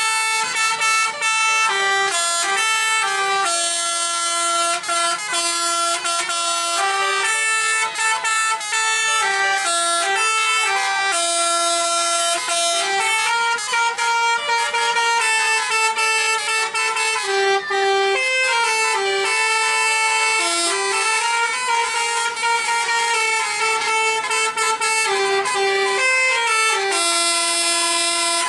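Tour-bus 'telolet basuri' melody horns playing a tune of held notes that step up and down in pitch, going on without a break.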